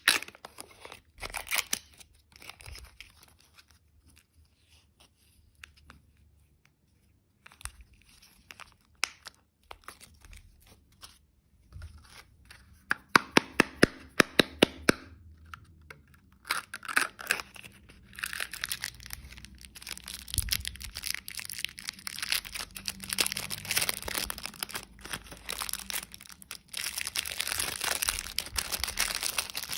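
Candy packaging being handled close up: scattered clicks and taps at first, then a quick run of even clicks about halfway through, then sustained crinkling and tearing of wrappers through the second half.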